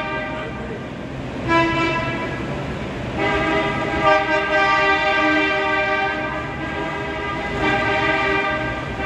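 Several car horns sounding together in long held blasts. A short blast comes about a second and a half in, then a long, overlapping chord of horns from about three seconds in whose notes shift as different horns join and drop out.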